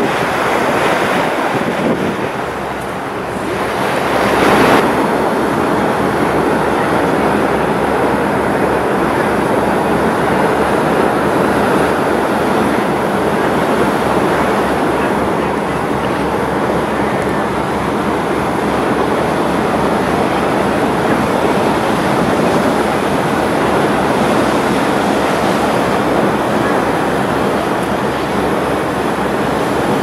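Boat under way at sea: a steady rush of water and wind on the microphone over a low, evenly pulsing engine rumble, with a brief louder surge about four seconds in.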